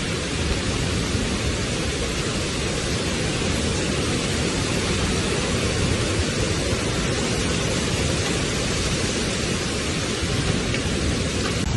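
Heavy rain and strong wind of a severe thunderstorm: a steady, even rush of noise with no break.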